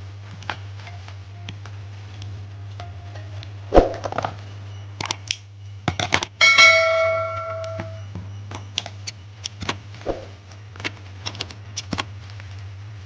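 Small hard parts being handled and set down in a series of clicks and knocks, with one sharper knock about four seconds in. A metal piece rings about six and a half seconds in and fades over a second or so. A steady low hum runs underneath.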